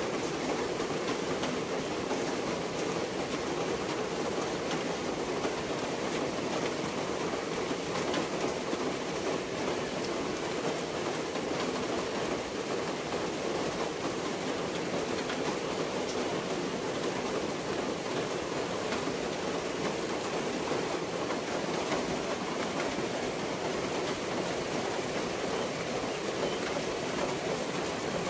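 A steady, even rushing noise of outdoor ambience that holds unchanged throughout, with no distinct events.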